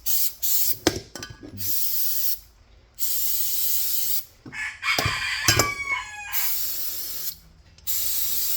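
Aerosol degreaser spraying onto a pair of channel-lock pliers in several hissing bursts, each a second or more long, with a few sharp clicks of handling early on. A short call with falling pitch, like a bird's, sounds about five seconds in.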